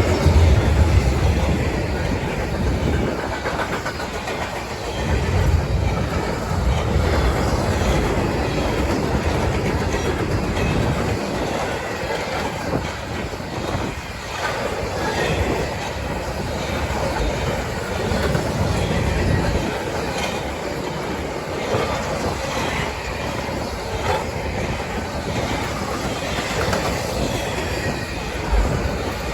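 A freight train rolling past, its cars' wheels clattering over the rails, with a heavy low rumble in the first few seconds.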